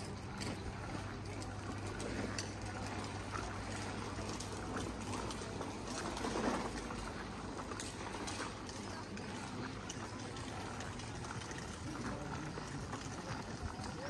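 Outdoor street ambience: a low steady engine hum from traffic that fades out about two-thirds of the way through, footsteps on paving, and faint voices of passers-by.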